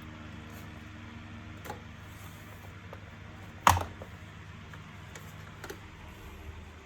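A sharp knock a little past halfway and a few fainter clicks, over a steady low hum.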